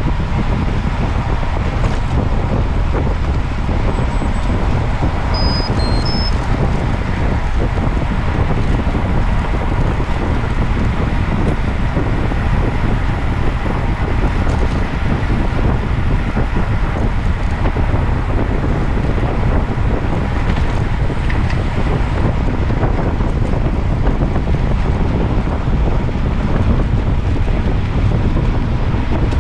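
Steady, loud wind rumble buffeting the microphone of a moving camera.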